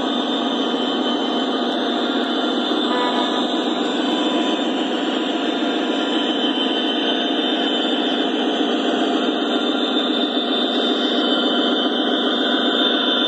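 Lionel O-scale model freight train rolling past close by: a steady rumble and fast clatter of metal wheels on model track as tank cars go by. It grows slightly louder near the end as a diesel locomotive passes.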